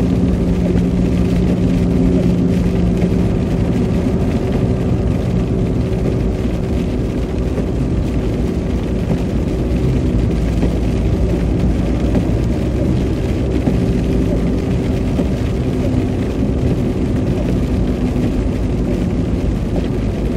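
Steady road noise inside a moving car: a constant engine hum under tyre noise from a wet, slushy road.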